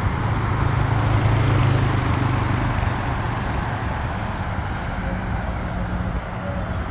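Road traffic at an intersection: vehicles running past, with a low engine tone loudest in the first few seconds, then easing off.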